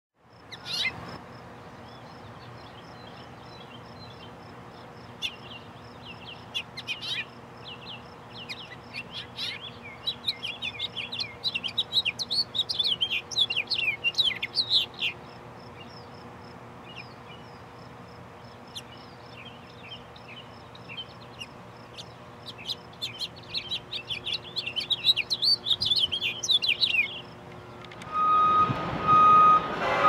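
A house finch singing in two long, rambling bouts of quick warbled chirps with a pause between. Near the end a diesel freight locomotive's air horn sounds loudly, a chord of steady notes.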